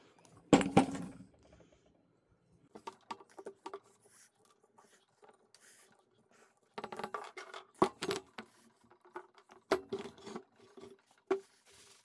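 An old refrigerator compressor handled on a wooden workbench: a heavy thud about half a second in as it is set down, then scattered metal clinks, taps and rattles from its steel housing and mounting bracket.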